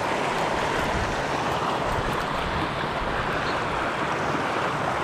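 Steady rushing of a small rocky-river rapid, water pouring over and around boulders.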